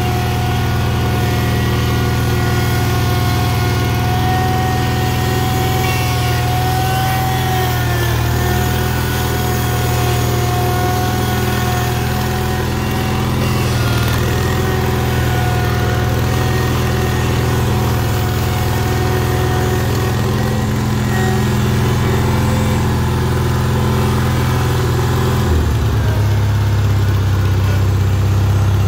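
International Cub Cadet 782 garden tractor engine running steadily, with a higher whine over it that wavers slightly. About 25 seconds in, the engine note changes.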